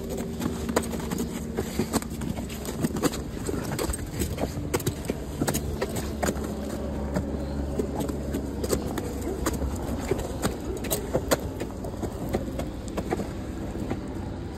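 An ice axe chopping steps into glacier ice, with sharp, irregular strikes a few times a second over a steady low rumble.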